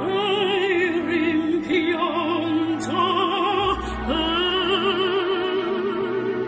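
Background music: operatic singing, with held notes and a strong vibrato.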